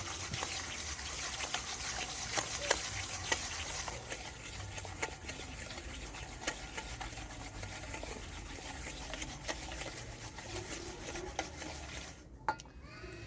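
Granulated sugar and vegetable oil being stirred round in a bowl: a steady scraping with frequent small clicks of the utensil against the bowl. It dies down about twelve seconds in.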